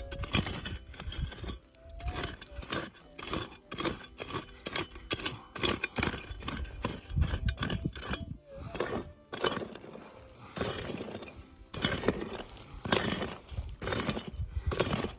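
Digging tool repeatedly striking and scraping into wet, muddy ground while a metal-detector target is dug out: an irregular run of short thuds, scrapes and gritty clinks.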